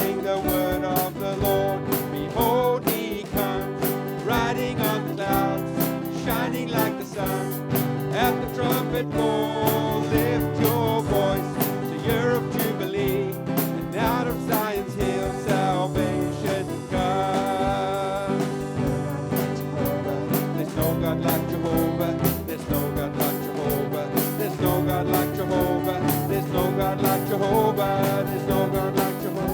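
A live worship band playing an upbeat gospel song, with guitar over a steady beat and singing.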